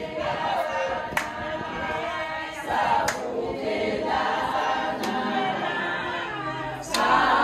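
A group of people singing together unaccompanied, with a few scattered hand claps.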